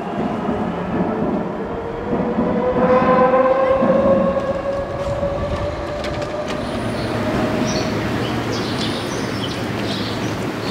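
A metro train running in the tunnel below: a steady rumble with an electric motor whine that rises slowly in pitch as the train picks up speed, loudest a few seconds in.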